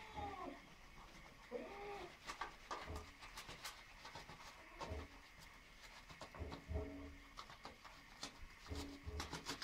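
Ginger domestic cat giving several short, quiet chirping meows while begging for food, with light clicks and taps between the calls.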